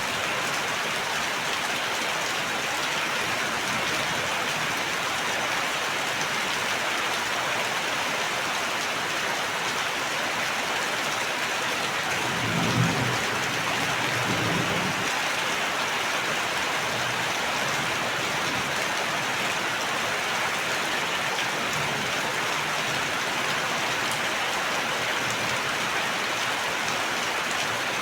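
Steady, even rainfall with a constant hiss of drops. About halfway through, two brief low rumbles of thunder swell and fade.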